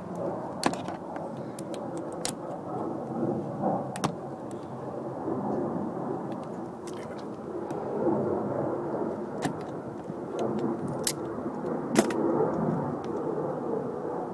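Screwdriver clicking and scraping against the plastic door-handle trim of a Honda Odyssey's door panel while its screws are worked out: a handful of sharp clicks scattered over a steady low background rumble.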